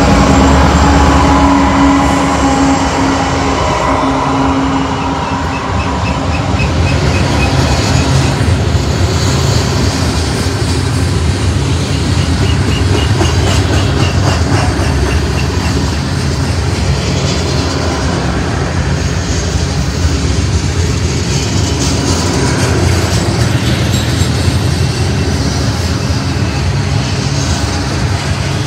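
BNSF freight train passing at close range. The diesel locomotive's engine rumble fades over the first few seconds, then the freight cars' steel wheels roll steadily over the rail with a clicking rhythm.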